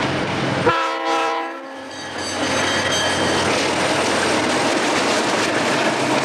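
Diesel freight locomotive horn sounds one short blast, about a second long. Then the train runs close past, with engines running and freight cars rolling steadily over the rails.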